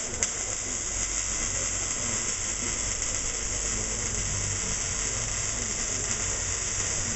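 Welding arc burning steadily with an even, high-pitched hiss.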